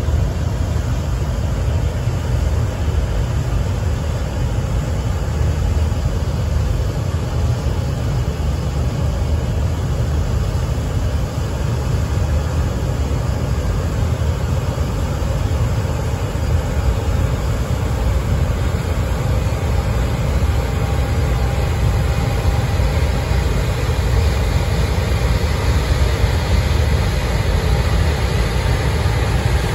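EF510 electric freight locomotive running with a steady low rumble as it slowly pulls away, a faint whine showing briefly around twenty seconds in.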